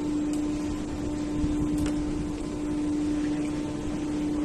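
Steady hum holding one low pitch without change, over a constant noise bed.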